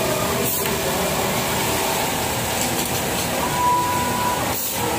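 Automatic quilting machine stitching a panel clamped in a pattern template, its needle and head drive running steadily. A short, steady high tone comes in about three and a half seconds in.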